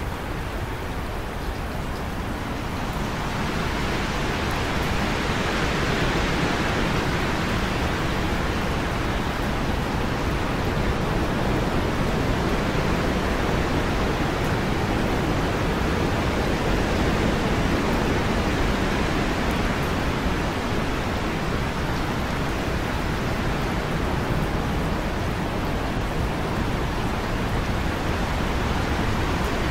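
Heavy rain falling, a dense, even hiss that swells louder a few seconds in and then holds steady.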